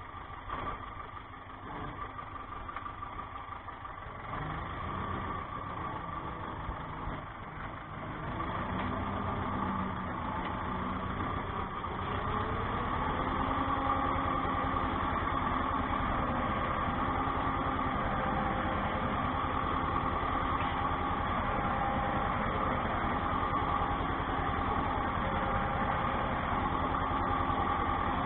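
Tractor engine heard from inside the cab while pulling a potato hiller along the rows. It picks up revs and grows louder between about 8 and 13 seconds in, then runs steadily.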